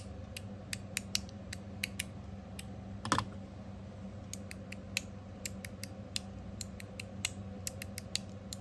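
Copper mechanical fidget slider being slid back and forth, its ball-and-spring detents snapping into place as a run of sharp, irregular clicks. One louder click about three seconds in rings briefly.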